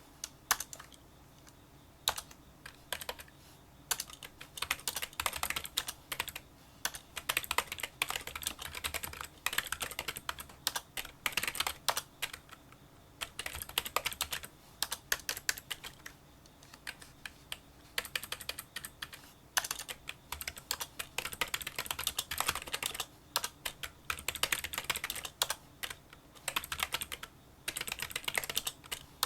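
Fast touch-typing on a Kinesis Freestyle Solo split keyboard with membrane key switches: quick runs of small, light clicks broken by short pauses.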